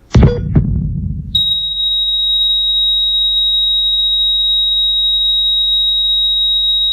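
A loud bang with a smaller second bang about half a second later, then a steady high-pitched electronic tone, like a beep, held for about five and a half seconds until it cuts off suddenly.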